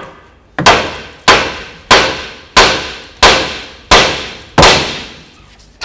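Hammer striking a vehicle's steel steering knuckle seven times at an even pace, about one and a half blows a second, each blow clanging and ringing briefly. The blows are knocking the outer tie rod end's tapered stud loose from the knuckle.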